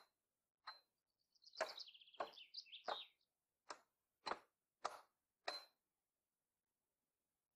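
Hand axe chopping into a wooden board, about nine sharp strokes at a pace of one every half second or so, stopping about six seconds in. A small bird sings a quick run of high notes during the early strokes.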